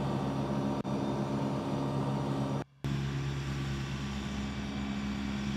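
John Deere 2038R compact tractor's three-cylinder diesel engine running steadily under mowing load, driving its 72-inch mid-mount deck. The sound drops out briefly about halfway through.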